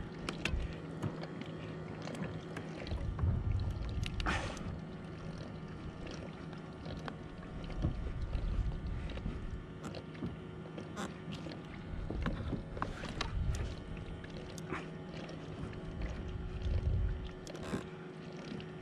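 Water slapping and lapping against a plastic sit-on-top kayak hull in low swells every four or five seconds, with scattered small clicks and knocks from the fishing rod and reel being handled.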